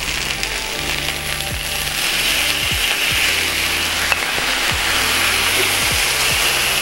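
Hot sizzler plate with steak, spaghetti and fries sizzling as creamy steak sauce is ladled onto it. A steady hiss that grows louder about two seconds in.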